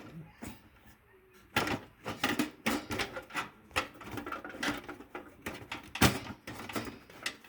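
Knocks and clatter of a desktop power supply being pushed and seated into a metal computer case, several sharp clunks with the loudest about six seconds in.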